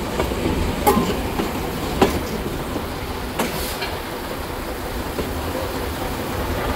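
Railway carriage rolling slowly along the track: a steady low rumble with a few sharp clacks from the wheels, about one a second early on.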